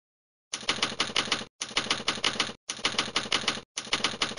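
Typewriter sound effect: four runs of rapid key strikes, about six a second, each run lasting about a second with short breaks between.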